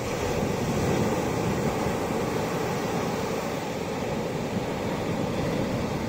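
Low ocean surf breaking and washing up a sandy beach: a steady rush of water that swells a little about a second in.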